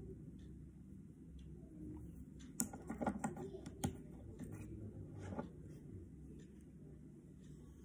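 A quick run of light clicks and knocks, painting things being handled on a tabletop, between about two and a half and four seconds in, over faint room hum.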